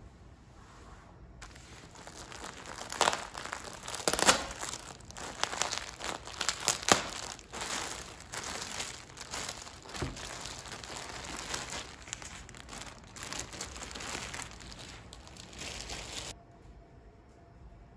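Clear plastic bag crinkling and rustling as hands unwrap balls of yarn from it, with several sharp, louder crackles. It starts about a second in and stops shortly before the end.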